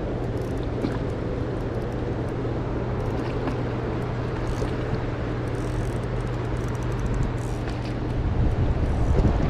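River current rushing steadily, with a constant low hum under it; near the end low buffeting from wind on the microphone grows louder.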